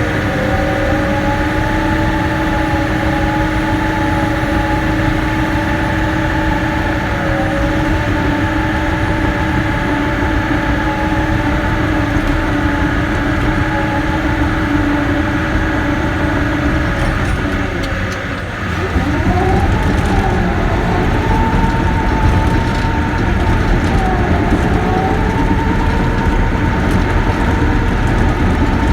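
Caterpillar D6K bulldozer's diesel engine running steadily under load. About two-thirds of the way through its note sags briefly, then picks up again a little louder, its pitch wavering up and down as the engine speed changes.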